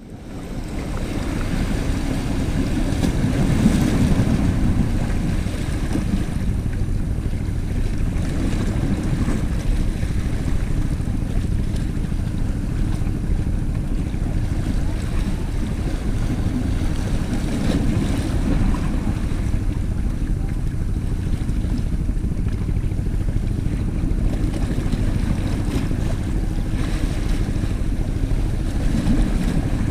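A steady low rumble of wind on the microphone, with small sea waves washing against shoreline rocks.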